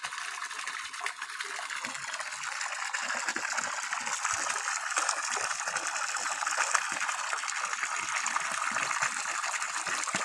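Cloudy, sandy water gushing steadily from a PVC discharge pipe and splashing onto mud, louder from about two seconds in. It is a new drilled well being flushed by a 0.5 HP submersible pump until the water runs clear.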